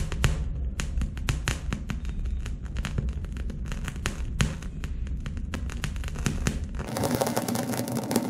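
Alcohol-soaked grapes burning, with rapid, irregular crackling and popping over a low rumble. About seven seconds in the sound switches abruptly to a steady hum.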